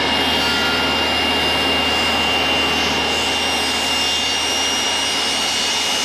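Table saw running and trimming a wooden shelf board: a steady loud motor-and-blade noise with a constant high whine.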